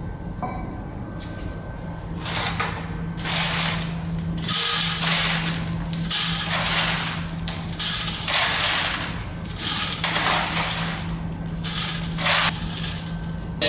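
Handfuls of crushed stone aggregate from a crushing test being scooped off a steel tray and dropped into a metal test sieve, a gritty rattle of stone on steel that comes again and again, about a dozen times. A steady low hum runs underneath.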